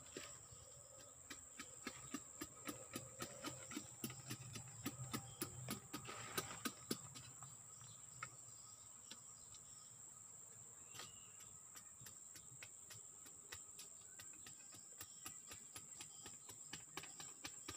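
Knife chopping and shaving a strip of wood in quick light strokes, about three a second for several seconds, then only a few scattered taps. A steady high insect drone runs underneath.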